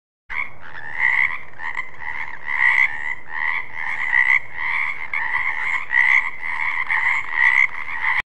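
Frogs croaking in a dense run of calls, the louder ones about twice a second; it cuts in suddenly just after the start.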